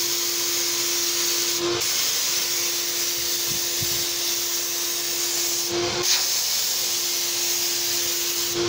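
Graco HVLP paint sprayer running: a steady hiss of air and paint from the spray gun over the even hum of its turbine. The hiss breaks off briefly twice.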